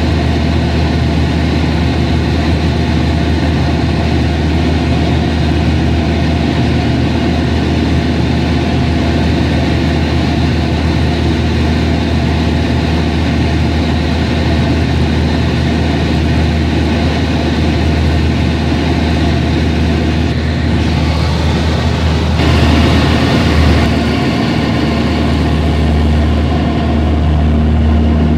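Aerobatic airplane's engine droning steadily in the cockpit in flight, with rushing air noise growing louder a little after twenty seconds in.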